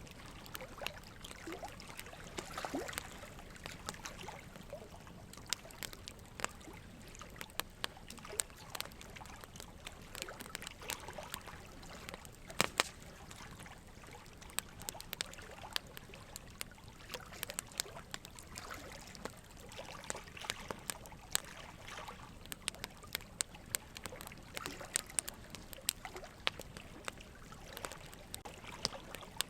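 Faint trickling water, with many irregular small drips, clicks and bubbly blips over a steady soft wash.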